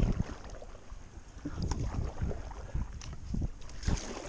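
Canoe being paddled: paddle strokes and water sloshing against the hull, with irregular knocks and thumps of the paddles against the canoe.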